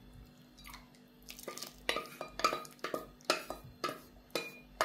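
Spoon clinking and scraping against a metal pot as soup is stirred, a run of about a dozen sharp, ringing knocks starting about a second and a half in. The soup has just had its egg-and-yogurt tempering added and is being stirred so it won't curdle.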